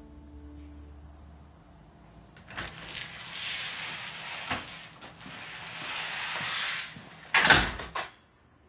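A glass entrance door opening, with a few clicks and a rushing hiss, then swinging shut with two loud knocks near the end.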